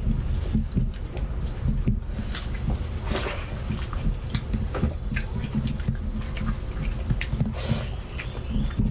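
Close-miked eating by hand: fingers mashing rice into rajma curry and mouths chewing, giving irregular wet squelches, smacks and clicks.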